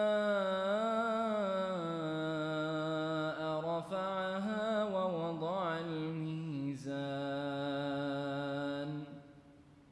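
A man's voice in melodic Qur'anic recitation, holding long drawn-out notes that turn slowly up and down in pitch. It breaks briefly about two-thirds of the way through, then stops about a second before the end.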